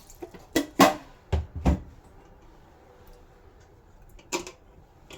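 Kitchen pot and utensils knocking and clunking as the steaming pot is set up: a few sharp knocks, the loudest under a second in, two deeper thumps about a second and a half in, and one more knock near the end.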